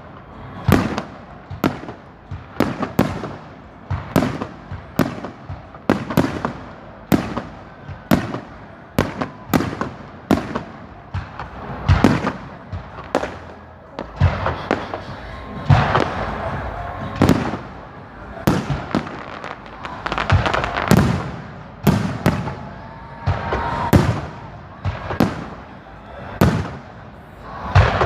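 Fireworks display: aerial shells bursting in a steady rapid series of bangs, about one to two a second, with crackling between the bursts.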